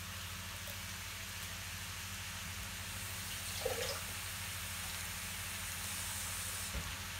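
Kitchen tap running water into an emptied tomato tin, filling it halfway: a steady, even rush, over a steady low hum.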